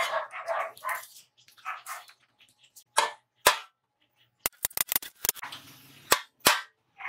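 Sharp metallic clicks and clanks of hand tools striking and handling steel parts on a steel workbench: two single strikes, then a quick run of taps, then two more strikes. A few short voice-like calls come in the first two seconds.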